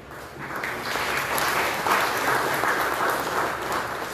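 Audience applauding, building up over the first second and then going on steadily.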